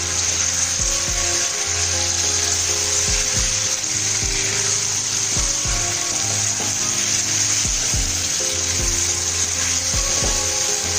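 A pan of onion-tomato gravy with stuffed brinjals sizzling as it is stirred, with short knocks of the spoon against the pan, over background music.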